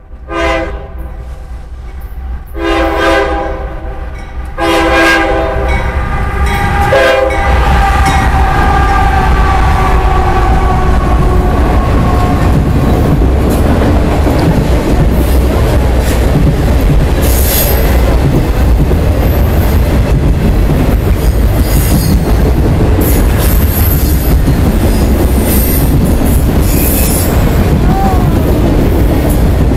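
A Union Pacific lead locomotive's air horn sounds three blasts, the last one long and dropping in pitch as the locomotive passes close by. Then comes the loud, steady rumble and clatter of a freight train's autorack cars rolling past, with brief high wheel squeals in the second half.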